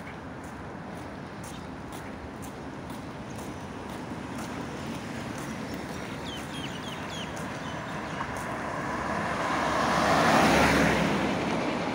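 An SUV passing close by on the street, its tyre and engine noise swelling to a peak near the end and then fading, over steady road noise. A few short bird chirps about halfway through.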